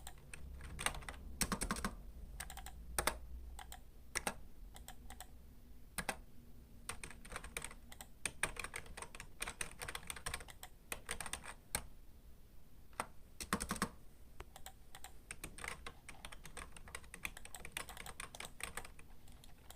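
Typing on a computer keyboard: a steady run of uneven key clicks, with a few louder bursts of keystrokes and a short pause near two-thirds of the way through.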